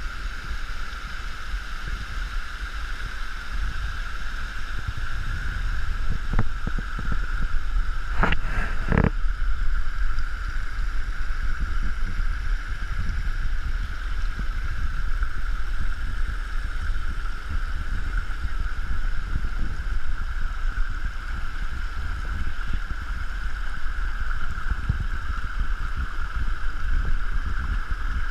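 Water running and splashing over a rock shelf at the top of a waterfall, with gusty wind rumbling on the microphone and a steady high drone of cicadas. A few brief knocks sound about eight seconds in.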